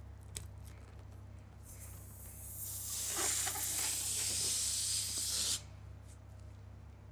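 A loud hiss of rushing air that builds over about a second, holds for a couple of seconds, then cuts off suddenly, after a faint click near the start.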